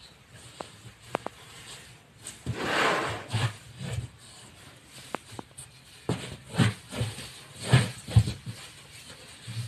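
A baby elephant shoving and trampling a rubber tire in deep sand: a run of dull thumps and scuffs, with a longer rushing scrape about three seconds in and a few sharp clicks.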